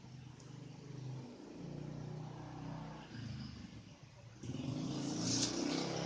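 Hands handling a plastic 4K/Blu-ray disc case, the hinged inner disc tray turned over, with plastic rustling and a few sharp clicks in the second half, over a low background rumble.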